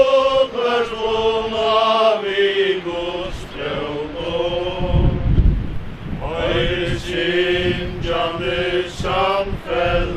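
A group of voices singing a slow hymn unaccompanied, the notes drawn out and held, with wind gusting on the microphone.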